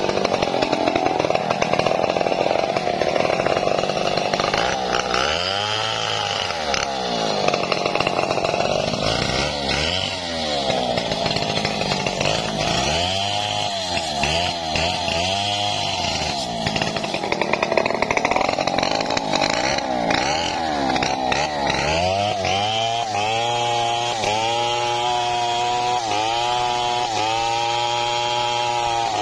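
Two-stroke Stihl chainsaw running and cutting through a log, its engine revving up and down over and over. In the last several seconds the pitch settles lower and more even, with regular short dips, as the bar works in the cut.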